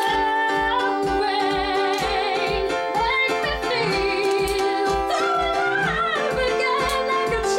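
Ballad playing: a woman singing held notes with vibrato over sustained chords, with a steady low beat about twice a second.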